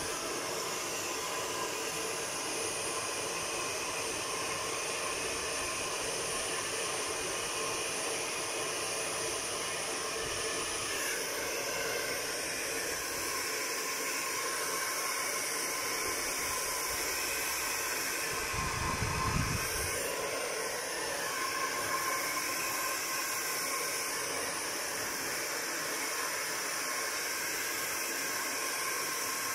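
Handheld hair dryer blowing steadily on a dog's wet fur. A brief low thud about two-thirds of the way in.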